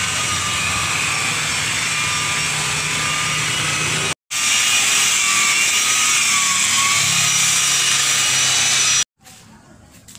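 Handheld electric power tool running steadily at high speed on a car's body panels, its whine wavering slightly. It breaks off abruptly about four seconds in, starts again at once, and stops shortly before the end, leaving only faint clicks.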